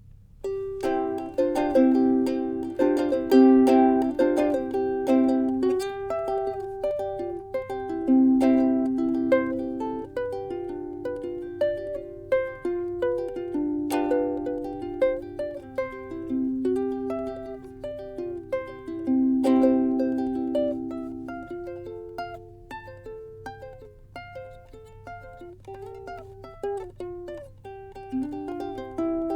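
Bondi Sundance ziricote soprano ukulele played solo, with chords and melody notes plucked and strummed. It is softer for a stretch past the middle and louder again near the end.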